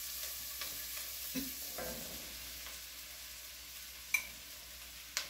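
Diced onions sizzling on high heat in an enamelled cast-iron pot, stirred with a wooden spatula that scrapes softly across the bottom. A sharp click about four seconds in and another near the end, as sliced mushrooms are tipped in from a plastic tub.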